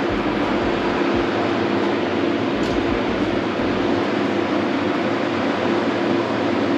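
Steady loud whir of a blast chiller's fans and refrigeration unit, an even rushing noise with a constant hum underneath.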